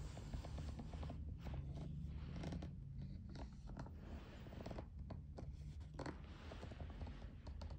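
Soft rustling and scraping of a colouring book's paper pages being handled, with small clicks, over a low steady hum.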